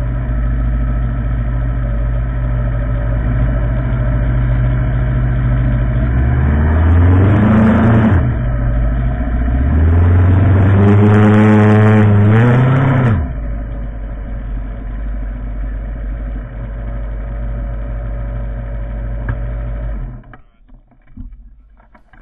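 Motorcycle engine running at low road speed, twice picking up in pitch as it accelerates, at about six seconds in and again around ten seconds, each time dropping back to a steady run. The engine sound falls away abruptly near the end.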